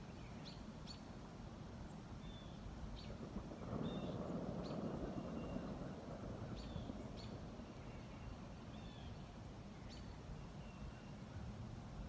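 Faint outdoor pond ambience: scattered short bird chirps over a steady low rumble, which swells for a couple of seconds about four seconds in.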